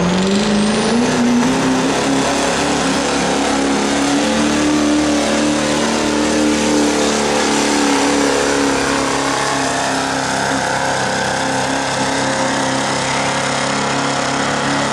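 Diesel pickup truck pulling a sled at a truck pull. Its engine revs climb over the first two seconds with a high whine rising alongside, then hold at high rpm, running loud and steady under load.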